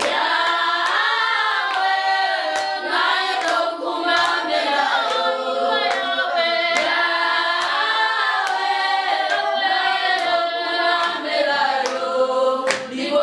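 A small group of women singing together unaccompanied, with hand claps keeping time.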